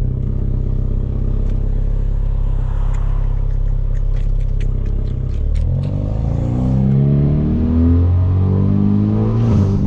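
Hyundai Veloster Turbo's tuned 1.6-litre turbocharged four-cylinder with a catless downpipe, cruising steadily and then accelerating from about six seconds in, the engine note climbing, dipping near the end as it shifts up. A quick run of clicks comes just before the acceleration.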